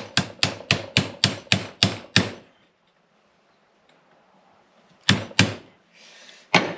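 Hammer driving a center punch against a splined press-fit door hinge pin, knocking the pin out of the hinge: a run of about eight quick blows, roughly three a second, then a pause of nearly three seconds and two more blows.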